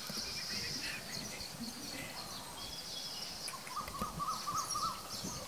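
Outdoor ambience of a steady, high insect hum, with a bird calling a quick series of short chirps in the second half.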